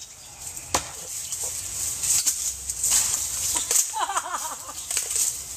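Dry branches and brush crackling and rustling as a tree stump is wrenched and broken by hand, with one sharp knock of wood a little under a second in. A brief series of quick pitched calls about four seconds in.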